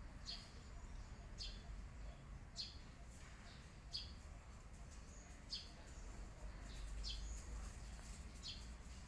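A bird chirping, repeating a short, high, falling note about every second and a half, over a faint low background rumble.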